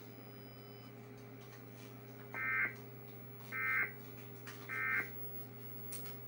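Emergency Alert System end-of-message signal from a DASDEC encoder: three short buzzy bursts of SAME digital data tones, about a second apart, the "NNNN" code that closes the test.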